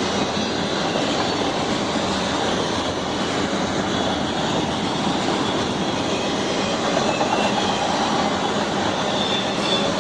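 Freight train cars, auto racks among them, rolling past close by: a steady noise of wheels running on the rails.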